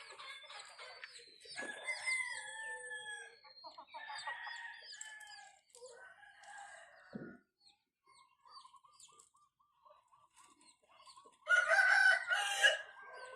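Backyard chickens: many short, high peeping chirps through the first half, then a run of clucks at about three a second, and a loud rooster crow near the end.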